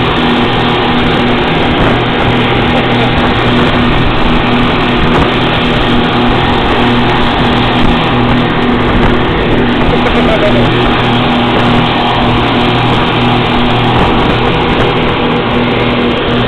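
Three 250 hp outboard motors running at full speed with a steady drone, over rushing water and wind as the boat travels at about 60 mph.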